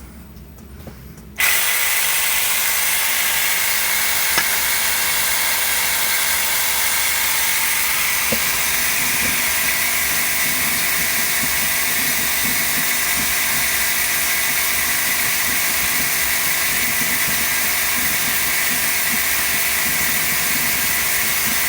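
Home-made alcohol furnace switched on, starting suddenly about a second and a half in and then running with a loud, steady rushing hiss and a high whine, with a faint click or two.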